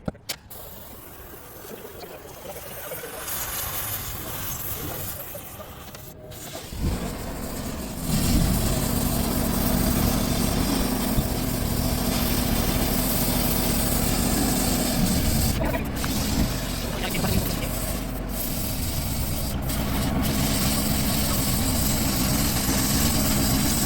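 A cutting torch hisses as it cuts through the steel floor of a mini excavator. About eight seconds in, a loud, steady engine-like drone with a hiss joins it and keeps running.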